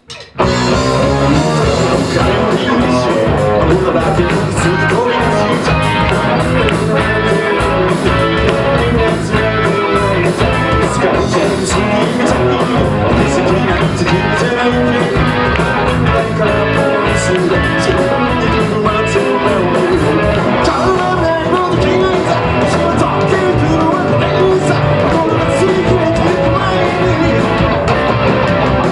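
Live rock band playing loud, with electric guitar, bass and drums coming in at full volume about half a second in.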